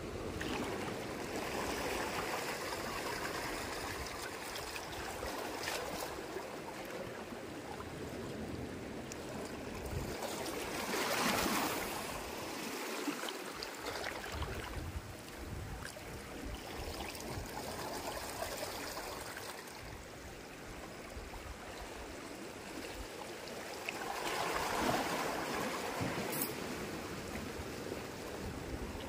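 Small waves lapping and splashing against the rocks at the water's edge, in a steady wash that swells louder twice.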